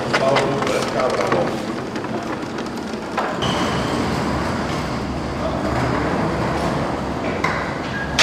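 Caster wheels of loaded roll containers rolling over a hard tiled floor: a steady rumble with a few knocks, the loudest at the very end.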